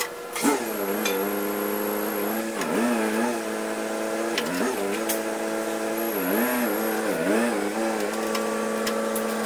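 Tractor engine running steadily, its pitch briefly sagging and recovering several times, with a few light metallic clicks.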